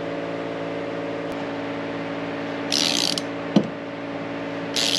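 A ratchet wrench clicking in two short bursts, about three seconds in and again near the end, with a single metallic clank between them. A steady mechanical hum runs underneath.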